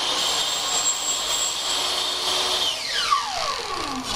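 Table saw fitted with a many-toothed acrylic-cutting blade running free at full speed with a really loud high whine. A little under three seconds in it is switched off, and the whine falls steadily in pitch as the blade spins down.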